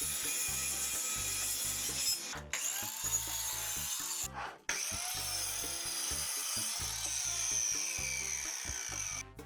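A power tool working wood with a dense, steady high-pitched noise, under background music with a steady beat. The sound drops out briefly twice, about two and a half and four and a half seconds in.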